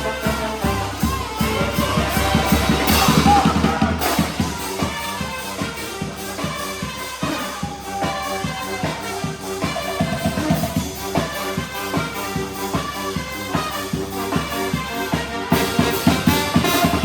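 Charanga (xaranga) brass band with drums playing an EDM tune: brass lines over a steady drum beat, with a build-up that breaks off about four seconds in.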